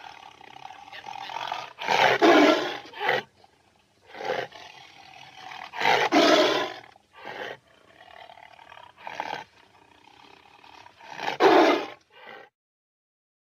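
Tiger roaring: three loud roars about four to five seconds apart, with shorter, weaker roars and quieter sounds between them. It falls silent about a second before the end.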